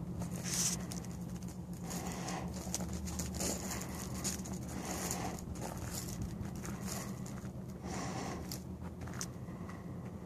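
Footsteps crunching on gravel, a step about every second, over a steady low hum.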